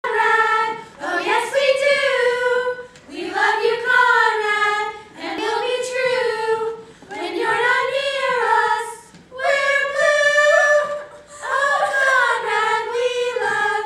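A group of teenage girls singing together, live on stage, in a string of sustained phrases each about two seconds long with brief breaths between them.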